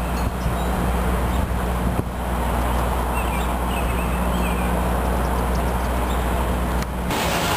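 Steady low hum of an engine running close by, with a few faint bird chirps about three to four seconds in. The hum cuts off suddenly near the end.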